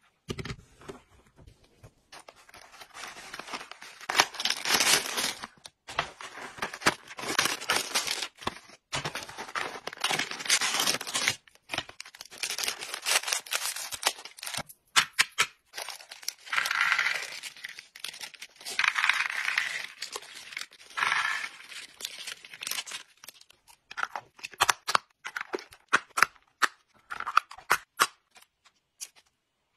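A crinkly plastic bag is handled and cut open with scissors. Soft-gel capsules are then poured into a small plastic box, and a run of sharp clicks follows in the last few seconds.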